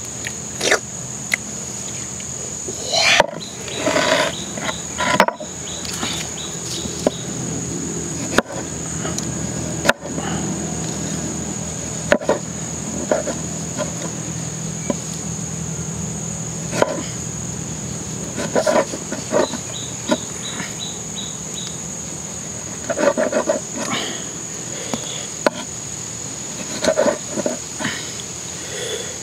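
Steady high-pitched insect drone, with scattered knocks and taps of a machete slicing limes on a wooden board.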